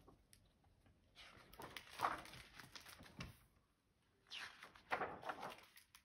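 Faint paper rustling as the pages of a hardcover picture book are turned, in two spells: about a second in, and again after about four seconds.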